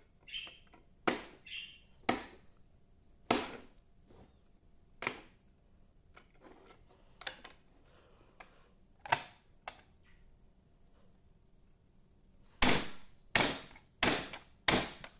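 Sharp plastic clicks and knocks from fire alarm devices being handled. They come singly every second or two at first, then four in quick succession near the end. No alarm horn or tone sounds.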